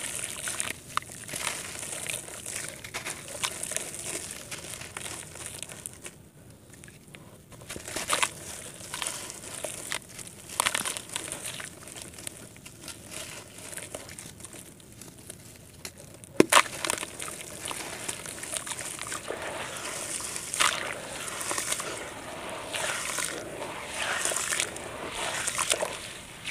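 Hands crumbling a wet lump of gritty red dirt over a tub of muddy water: irregular crunchy crumbling with splashes and sloshing, and one sharp crack a little past halfway. Near the end the hands slosh through the muddy water.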